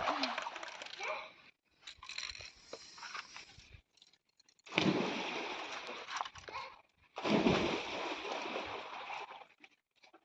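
Water splashing and sloshing in a pool of swimmers, in several stretches that start loud and fade, broken by sudden short silences.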